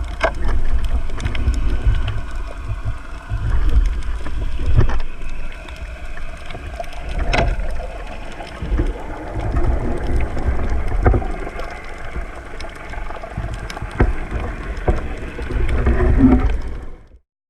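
Water sloshing and rumbling against the microphone of a spearfisher's camera, with scattered sharp clicks; it cuts off sharply near the end.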